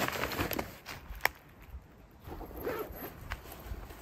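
A zipper being pulled on a backpack, with rustling of a nylon stuff sack being handled, and one sharp click a little over a second in.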